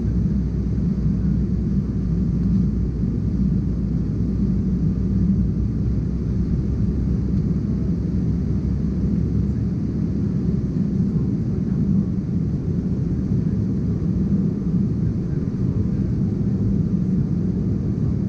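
Steady low drone of an Embraer ERJ-190's GE CF34-10E turbofan engines and rushing air, heard inside the cabin as the jet climbs. The deepest part of the rumble eases about halfway through.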